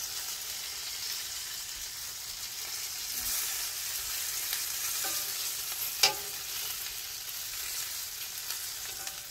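Chicken wings sizzling on a gas grill's grates, a steady hiss, with one sharp metallic click about six seconds in.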